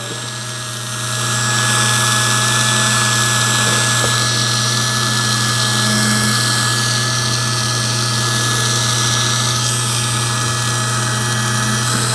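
Ryobi 4-volt USB power carver running with a steady buzz, its reciprocating V chisel carving pine; the sound swells about a second in and then holds level.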